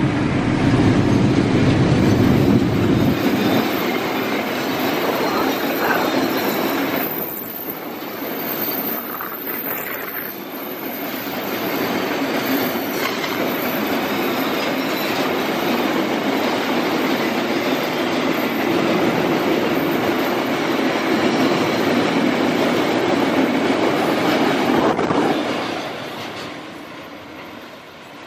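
Long freight train of fuel tank wagons rolling past close by: a steady rumble and rattle of steel wheels on rails. A low diesel locomotive hum fades out in the first few seconds. Near the end the noise falls away as the last wagon passes and recedes.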